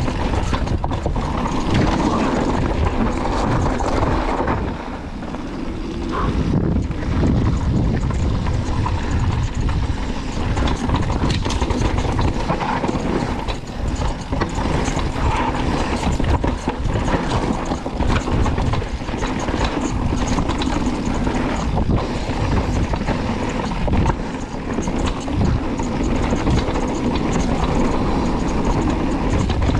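Mountain bike riding down a dirt trail: a steady rush of wind noise and tyre rumble, with the chain and frame rattling and knocking over bumps.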